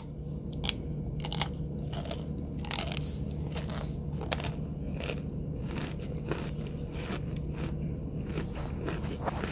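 A person biting and chewing a hard white chunk close to the microphone: a quick, irregular run of sharp crunches and cracks.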